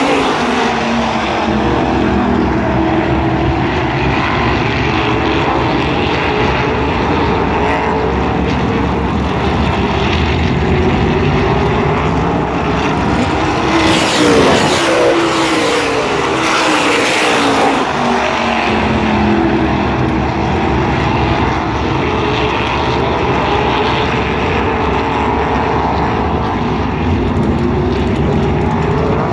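A field of oval-track race cars running laps at racing speed, their engines making a loud, steady sound. In the middle the pitch sweeps up and then down several times as cars come through the turn and pass close by.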